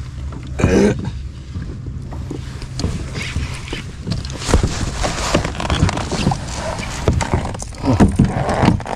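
Irregular knocks, rattles and water splashing around a fishing kayak on the water, with a low steady hum in the first second or two.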